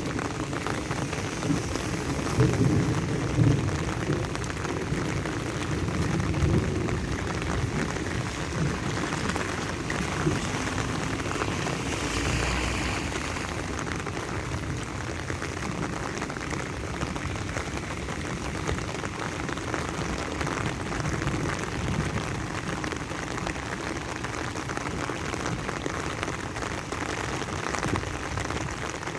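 Steady rain falling, an even hiss, with a low rumble under it through the first several seconds.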